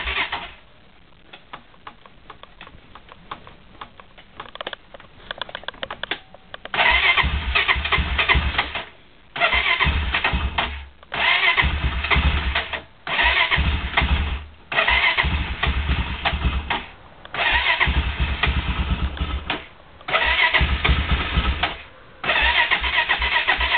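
Honda ATV's electric starter cranking the cold engine in repeated bursts of a second or two with short pauses between them, about eight attempts, the engine not catching. Before the cranking there are a few quieter seconds of faint clicking.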